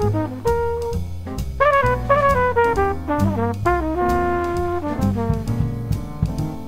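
Swing jazz combo: a brass horn played by the band's trumpeter solos over piano, bass and drums, with a quick run of stepping notes about two seconds in.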